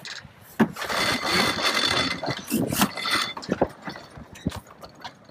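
Sailboat sheet winch being cranked, its pawls whirring and clicking as the line comes in, for a couple of seconds after a sharp knock about half a second in.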